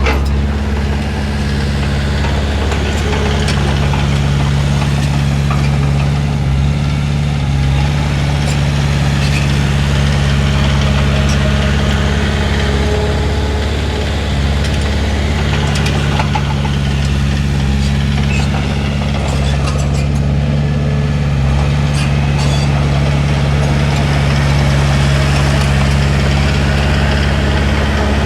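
Heavy diesel engine of a Komatsu D31P bulldozer running steadily, its pitch dipping briefly a couple of times, with scattered small clicks and knocks.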